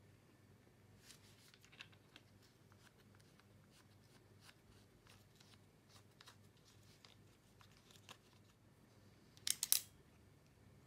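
Faint plastic clicks and handling noises from a Sony ZV-1 compact camera in a metal cage with a wooden grip as it is handled. About nine and a half seconds in, a sharp cluster of clicks as the compartment door on the camera's underside snaps open.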